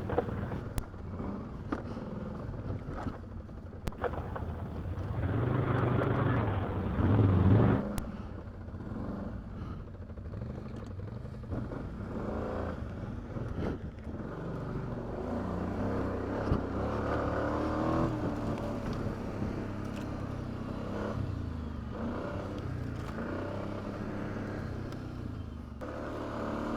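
ATV engine running at trail pace, revving up louder for a couple of seconds about five seconds in, then settling back to a steady run, with light clicks and knocks.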